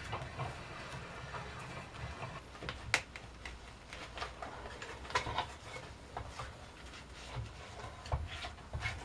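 Scattered clicks and knocks of an oak basket wine press being taken apart after pressing, as its screw head and pressing plate are handled and lifted off the pomace; one sharper click about three seconds in.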